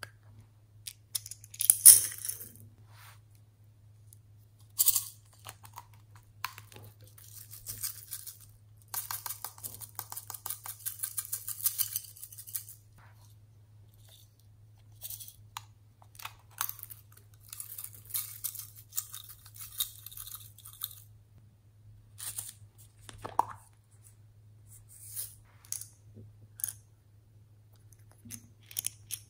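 Small plastic beads and buttons clicking and rattling against small glass bowls, with a plastic capsule container clicking as it is handled. The sounds come in clusters of sharp clicks and rattles with short pauses between. A low steady hum runs underneath.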